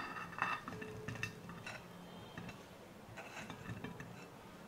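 Small boiled potatoes tipped out of a ceramic bowl onto a ceramic platter: faint, scattered soft knocks and clinks of the potatoes and the bowl's rim against the plate.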